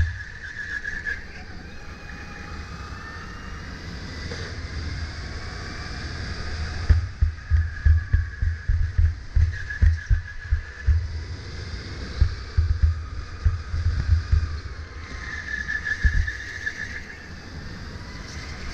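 Sodi RSX2 electric kart's motor whining, its pitch gliding up and down with speed through the corners. Irregular low buffeting and thumps join in through the middle stretch.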